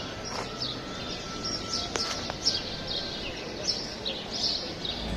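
Small birds chirping over an even background hiss, a few short chirps every second.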